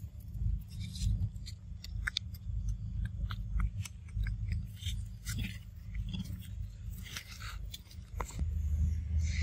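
A monkey biting and chewing mango: a string of short, irregular clicks and crunches, over a steady low rumble.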